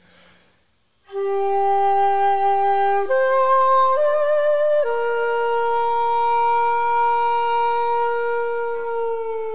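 Shakuhachi playing a slow solo phrase. It enters about a second in on a held note and steps up twice, the second note with vibrato. It then settles on a long held note that bends down in pitch near the end.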